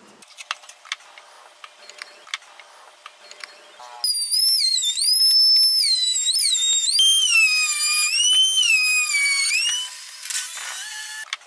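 Router spinning a profile bit up through a homemade router table, a loud high-pitched whine whose pitch dips and recovers again and again as a board is fed past the bit and loads it. It starts about four seconds in, after a stretch of faint clicks, and falls away about six seconds later.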